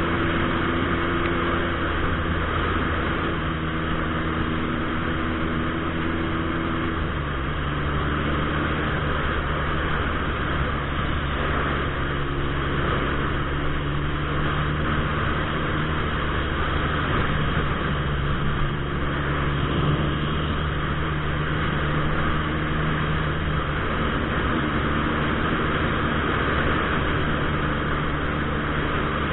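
Turbocharged Suzuki Hayabusa inline-four running steadily while riding, heard from a helmet camera over a constant rush of wind noise. The engine note changes pitch once about seven seconds in, then holds steady.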